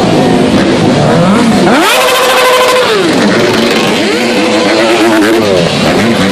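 Dirt bike engines revving hard: the pitch climbs steeply about two seconds in, holds high for about a second and falls back, then climbs and falls again.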